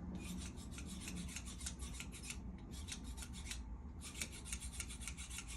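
Hands rubbing briskly over a patient's foot and toes, a fast back-and-forth friction of about eight strokes a second that breaks off briefly twice.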